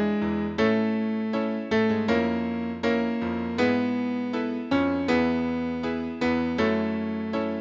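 Piano playing a slow succession of chords, each struck and left to fade before the next.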